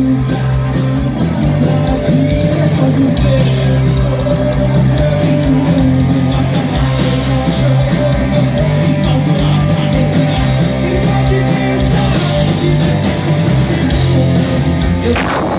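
Live rock band playing: a singer over electric guitars and drums, heard through the club's PA.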